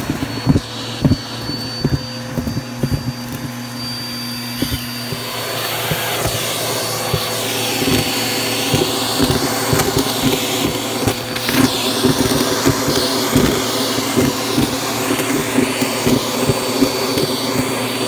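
Vacuum cleaner running with its hose nozzle sucking up shredded paper, pom-poms, feathers and confetti from a carpet: a steady motor hum with a high whine, and constant crunchy clicking and rattling as debris is pulled into the hose. It grows louder about six seconds in.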